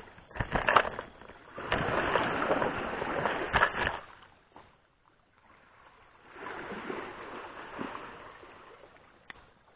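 Rustling and scraping with a few sharp clicks, loudest in the first four seconds and fainter again later: a freshly landed trevally being lowered onto loose coral rubble and picked up with fish-grip pliers.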